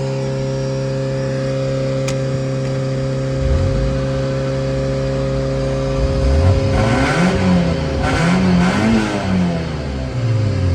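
Mazda Miata's four-cylinder engine running and being revved in repeated blips that rise and fall in pitch, starting about three and a half seconds in and coming more often from about six seconds on, over a steady drone.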